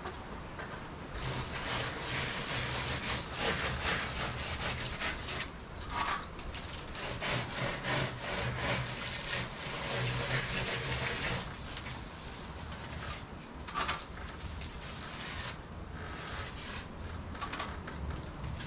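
Hand trowel scraping and rubbing wet stucco patching mix onto a ceiling in quick repeated strokes. It is heaviest through the first half and lighter after.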